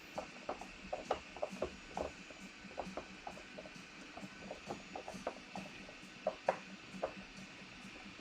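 Faint, irregular small clicks and taps of a hand tool working a hidden set screw out of a model jet's landing-gear wheel assembly, metal on metal.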